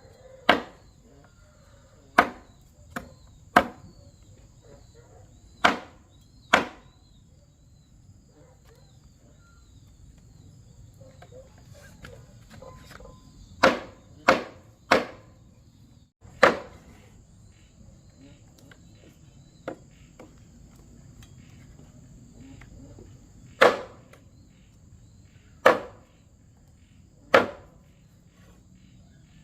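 Sharp chopping strikes at irregular intervals, one every second or few seconds, some in quick pairs or threes. Behind them runs a steady high insect buzz.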